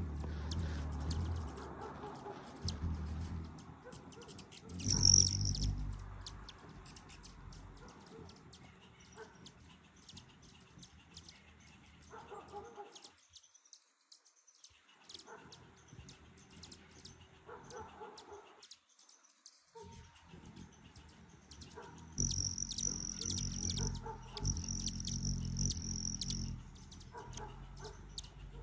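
Male broad-tailed hummingbird's wing trill, a high metallic buzz as it hovers and flies: briefly about five seconds in, then steadily for several seconds with short breaks from about 22 seconds in. Faint scattered high ticks come between, and a low rumble comes with the trill.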